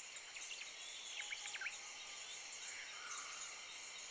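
Faint cartoon jungle ambience: a few short bird chirps in the first two seconds over a steady high insect buzz.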